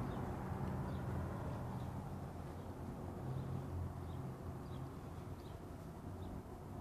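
Background ambience: a low steady rumble and hum, slowly fading, with faint short high chirps recurring every half second or so.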